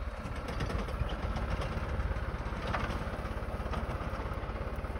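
Engine of a Spedo Fruipick hydraulic olive tree shaker running steadily, with a fast, even pulsing.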